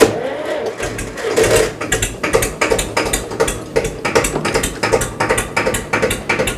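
Old tractor's diesel engine running with an even knocking beat, about four knocks a second.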